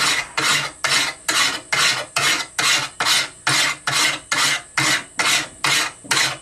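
A hand file rasping along the edge of a steel sword blade in short, even strokes, about two and a half a second. The file is working steel hardened towards the handle, where it is not biting well.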